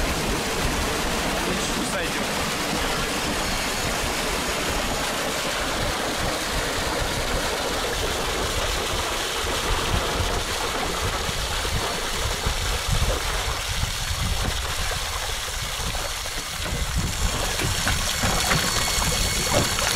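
Water and live carp gushing from a fish-transport tank down a chute into shallow lake water, a steady rushing splash. Near the end there is more uneven splashing.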